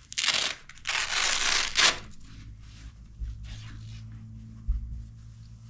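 Two loud bursts of rustling, scraping noise in the first two seconds, as of the dog's stretchy fabric bodysuit being rubbed and pulled by hands. A low steady hum and a couple of soft thumps follow.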